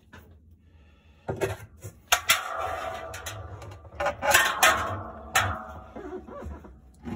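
Hard objects clattering and clinking as they are handled, a string of sharp knocks and rattles beginning about a second in.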